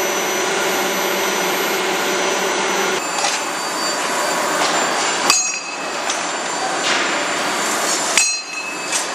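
Loud steady machine and shop noise, which changes about three seconds in to a hissing noise broken by two sharp metal clanks that ring on briefly, about five and eight seconds in: racks of hot-forged steel connecting rods being handled at a steaming quench tank.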